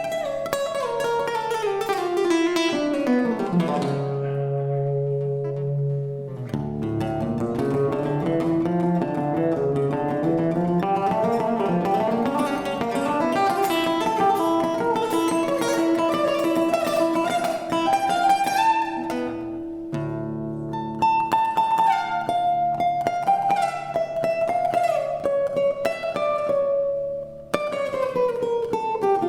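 Live Latin-Indian fusion music played on plucked strings, guitar to the fore, in quick runs of notes that often tumble downward, with a low held note early on and a couple of brief breaks in the phrasing.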